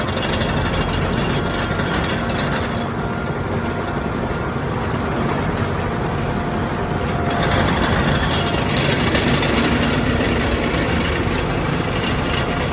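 John Deere 850 crawler dozer's diesel engine running steadily under way, getting somewhat louder about halfway through.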